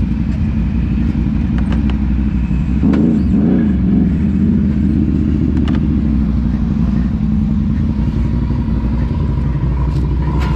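ATV engine running steadily, with a brief rise in revs about three seconds in and a few sharp clicks.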